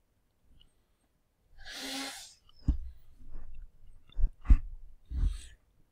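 A man sneezing close to the microphone about a second and a half in, then several short, sharp thumps.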